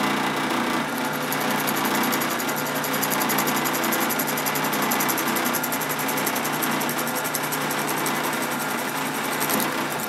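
Drill press motor running steadily while its bit drills a 3/16-inch through hole in a wooden dowel.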